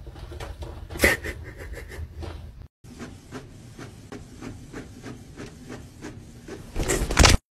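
An inkjet printer printing and feeding a sheet out, a run of quick regular clicks and rattles, with a louder burst of noise near the end. Before it, in a separate clip, a sharp sound about a second in.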